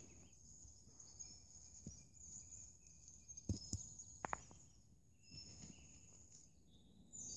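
Quiet woodland with faint distant birdsong, and a few short knocks about halfway through as sticks and stones are handled around a burnt-out campfire.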